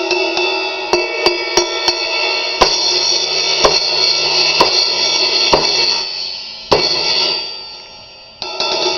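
Sabian XS20 16-inch crash cymbal struck over and over, each hit renewing a long shimmering wash. It dies away twice, and each time it is hit again. The cymbal has a few small cracks but still rings out fully.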